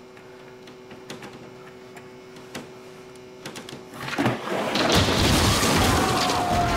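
Drywall cracking, crashing and crumbling as a body drops through it: quiet with a few small clicks at first, then about four seconds in a loud breaking crash builds up and keeps going, heavy and rumbling.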